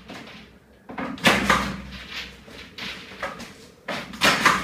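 Coil of PEX underfloor-heating pipe being unwound and handled, its plastic pipe and wrapping rustling and scraping in irregular bursts, the loudest about a second in and near the end.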